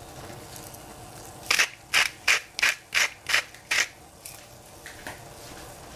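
A doll-shaped seasoning shaker shaken over a pot of water: seven quick shakes, about three a second, then a couple of faint taps.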